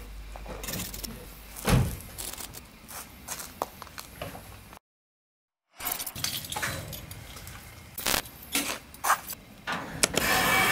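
Metallic clicks, knocks and rattles from a metal garage door being worked by hand, with a heavier thump about two seconds in and a brief dead-silent gap midway.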